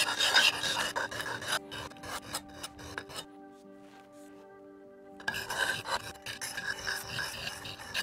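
Steel knife blade scraped in quick strokes across a DMT extra-coarse diamond bench stone, grinding chips out of the edge, with more rubbing later on. Faint background music runs underneath.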